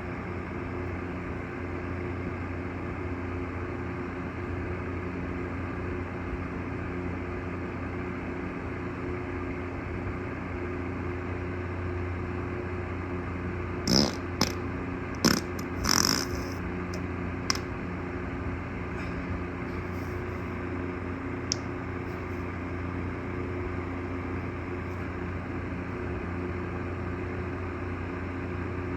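A quick run of four or five short farts about halfway through, one of them a little longer than the rest, over a steady low hum.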